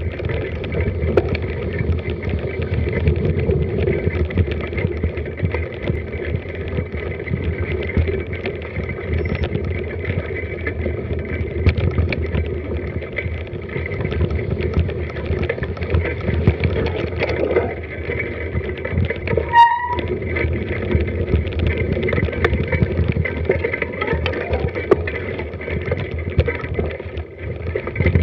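Mountain bike ridden at low speed over a wet, rough forest trail: continuous rumble and rattle of tyres and frame over the ground, mixed with wind noise on an action-camera microphone. A brief high squeak sounds once about two-thirds of the way through.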